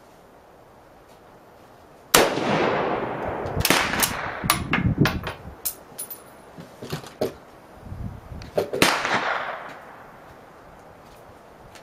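A 1941 Mosin-Nagant bolt-action rifle firing a 7.62x54R round about two seconds in, the crack echoing for over a second. Then come sharp metallic clacks and clinks as the bolt is worked, and a second shot with the same long echo about nine seconds in.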